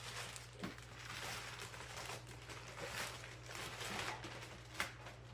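Faint rustling as packaging and plastic parts are handled, with a couple of light clicks, one about a second in and one near the end, over a steady low hum.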